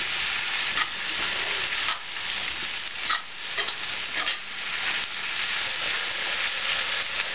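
Cabbage and Spam sizzling in bacon grease in a skillet as they are stirred: a steady frying hiss, with a few short clicks and scrapes of the utensil against the pan.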